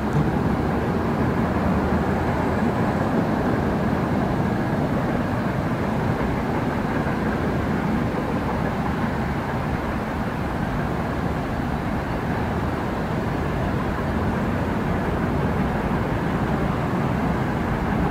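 VL10 electric locomotive and its freight train approaching, a steady rumble with a faint whine.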